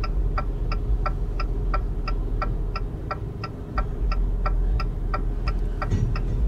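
Railroad grade-crossing bell dinging steadily, about three strikes a second, over the low rumble of a passing freight train.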